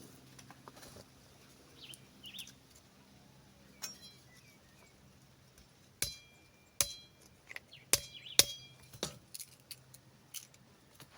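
Sharp knocks and taps from work on a wooden stick bird trap (calaban). A cluster of about five loud strikes in the second half each rings briefly, with a few fainter taps before them.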